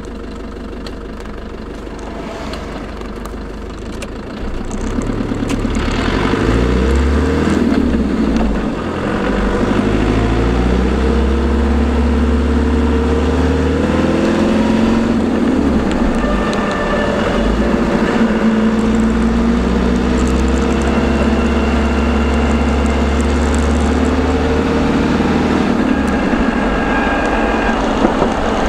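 Land Rover LT230 transfer box whining while driving, with sound proofing fitted, over engine and road noise. The whine's pitch rises and falls with speed, and the sound builds in loudness over the first few seconds as the vehicle picks up speed.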